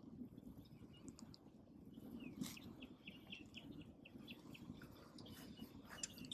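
Faint bird calls: a few short chirps, then a quick run of about ten short repeated notes beginning about two and a half seconds in, over a low outdoor hum.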